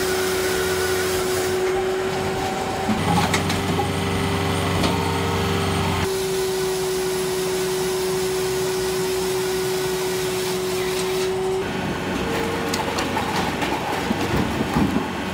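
Firewood processing machine running: a steady mechanical hum with a constant tone and short knocks now and then. The sound changes abruptly several times.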